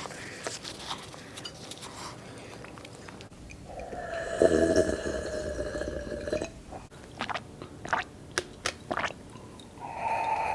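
Close-miked eating: chewing and mouth clicks. About four seconds in comes a long held throat sound of nearly three seconds, the loudest thing here.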